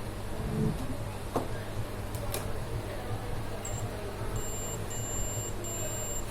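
High-pitched electronic beeping: short beeps repeating about every half second, starting a little past the middle, over a low steady electrical hum, with a single click early on.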